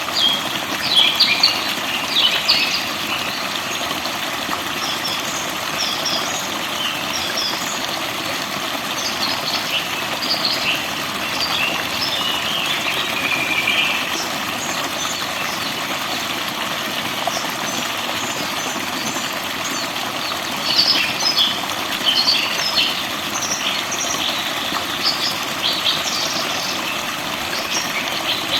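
Forest birds chirping and trilling in bursts over a steady rush of flowing water, with livelier spells of song near the start, in the middle and toward the end.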